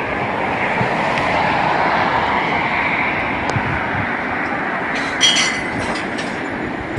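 A train running past on the railway line with a steady rushing rumble. A brief high-pitched squeal comes about five seconds in.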